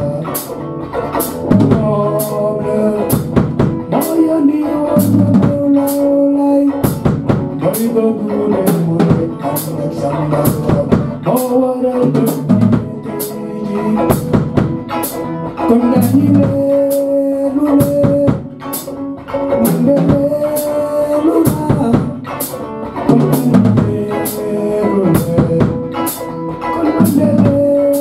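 Electric guitar and Pearl drum kit playing an instrumental passage together, the drums keeping a steady beat under sustained guitar notes.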